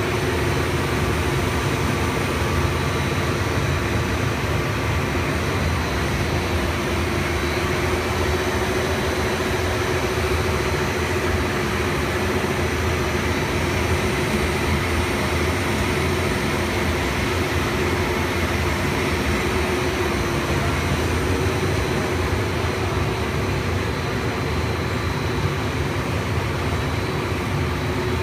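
AB coextrusion LDPE blown film line running: a steady mechanical hum from its extruder drives and cooling-air blower, with a steady mid-pitched tone and faint high whines over it.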